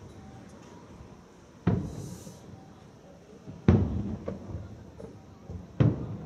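Aerial firework shells bursting: three booms about two seconds apart, each trailing off in a rumble, with a brief hiss just after the first.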